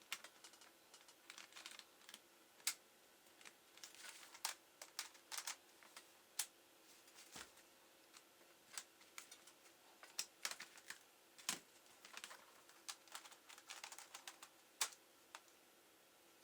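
Faint, irregular light clicks and taps from a laptop's plastic parts, some in quick clusters and some alone.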